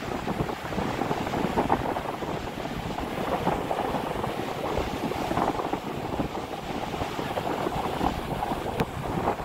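Wind buffeting the phone's microphone in uneven gusts over the continuous rush of surf breaking on the shore.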